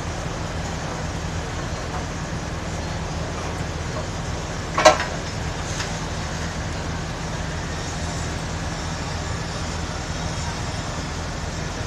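Steady low rumble of fire apparatus engines running at the fire scene, with a single sharp bang about five seconds in.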